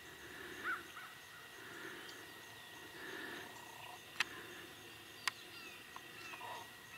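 Quiet open-field ambience: a faint steady high hum with a soft regular pulsing over it, and a short bird chirp about a second in. Two sharp clicks come about four and five seconds in.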